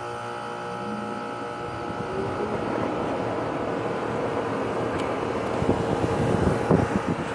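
A fan running with a steady whooshing drone that slowly swells, with a few knocks near the end.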